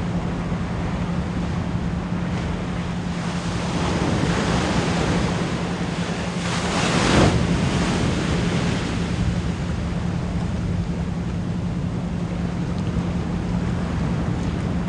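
Ocean waves washing in: one swell builds about four seconds in and a louder one breaks about seven seconds in. A steady low 174 Hz pure tone holds underneath.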